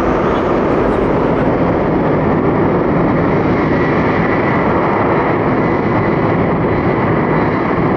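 Jet airliner engines running loud and steady, with a faint high whine over the rush.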